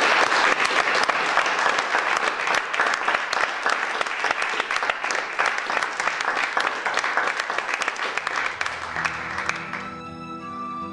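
A roomful of people applauding steadily after a talk. About nine seconds in, the clapping fades out as soft instrumental music comes in.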